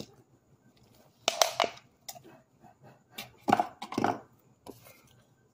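Hand crushing and crumbling a heap of dried, packed cornstarch chunks, giving short crunching bursts; the two loudest come about a second in and about three and a half seconds in.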